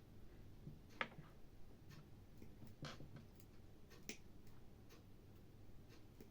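Near silence with a few faint, sharp clicks of hand tools on the drill's power cable as it is cut and stripped, the clearest about a second in, near three seconds and about four seconds in.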